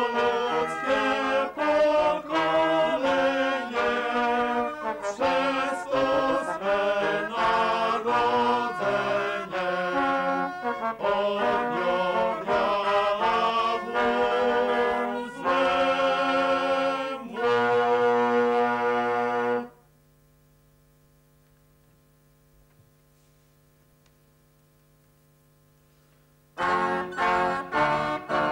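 Early-music wind ensemble of recorder-type pipe, trombones and trumpets playing a lively old Polish carol tune, closing on a long held chord about twenty seconds in. Near silence follows for about seven seconds, then brass music starts again near the end.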